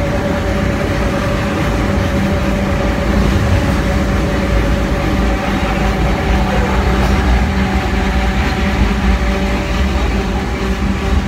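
Historic electric tram running along its rails, heard from inside the wooden passenger car: a steady low rumble of wheels on track with a constant motor hum.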